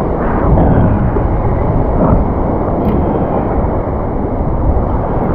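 Surf washing and sloshing around a wading angler, a loud, steady rush of churning water close to the microphone.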